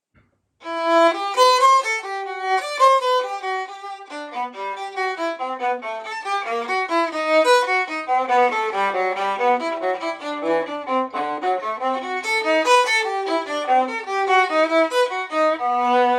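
An old 15.5-inch Stradivarius viola played solo with the bow. After about half a second of silence it plays a melodic passage of notes across its range, quicker in the middle, and settles onto a low note near the end.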